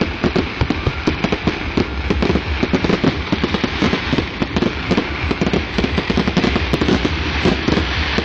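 Fireworks finale: a dense barrage of aerial shells bursting in rapid succession, many bangs a second, with crackling between them.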